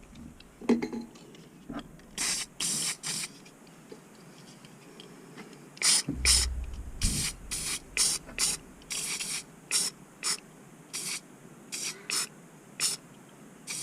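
Aerosol spray-paint can sprayed in a long series of short hissing bursts, about fifteen, laying red and blue paint onto the surface of a bucket of water for hydro dipping. There is a brief low rumble about six seconds in.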